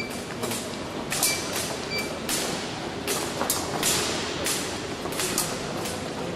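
Fencing competition hall noise: a steady din with frequent sharp clicks and clanks from the pistes, and a few short high beeps in the first two seconds.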